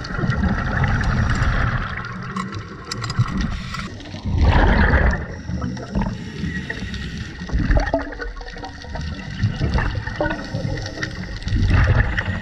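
Diver breathing through a scuba regulator underwater: exhaled bubbles gurgling and rushing past in repeated surges, the loudest about four seconds in and another near the end.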